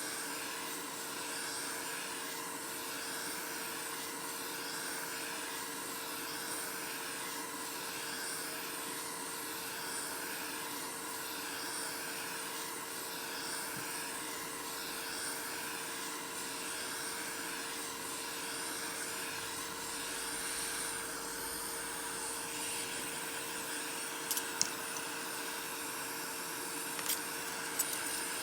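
Steady whirring hiss of air moved by a small electric motor, with a constant hum and a slow, even swell about once a second. A few light clicks come near the end.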